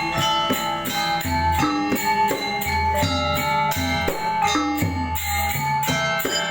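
Balinese gamelan ensemble playing a tabuh: bronze metallophones striking fast, dense patterns over deep low strokes that return every second or two.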